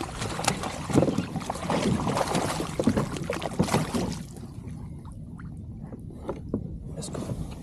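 A hooked bass splashing and thrashing at the surface beside a kayak as it is played in, with scattered knocks. The splashing dies down about four seconds in.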